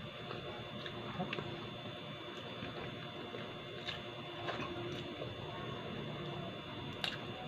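Close-up eating sounds: soft, irregular chewing with a few sharp clicks of cutlery against a plate, over a faint steady room hum.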